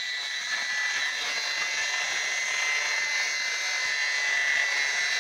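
Hand-held angle grinder with a sandpaper (regmal) disc running against marble skirting, a steady high-pitched whine as the stone is ground smooth.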